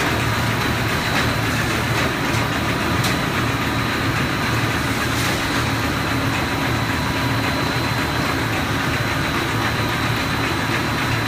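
Snack production line machinery running steadily: motors and conveyors giving a continuous hum with a thin, steady higher tone over it.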